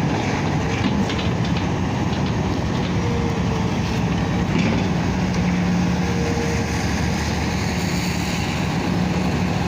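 Engine of a 25-ton crane running steadily under load as it hoists cement, a constant loud drone with a steady low hum.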